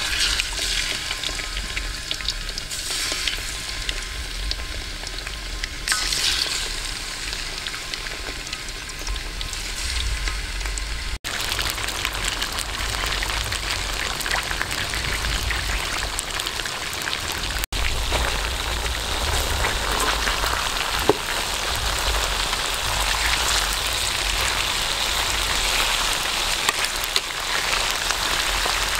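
Stingray pieces frying in hot oil in a metal wok: a steady dense sizzle of bubbling oil. It breaks off abruptly twice, about a third of the way in and again a little past halfway, and is fuller after the first break.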